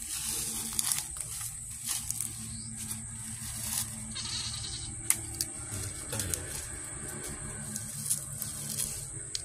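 Goats bleating, with a few sharp snaps as the tough outer sheaths are peeled off freshly cut bamboo shoots.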